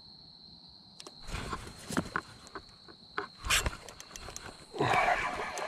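Rustling, scraping and knocks of a person moving and handling fishing gear at the water's edge, starting about a second in, with one loud knock about three and a half seconds in. A steady high-pitched drone of evening insects sounds under the first three seconds.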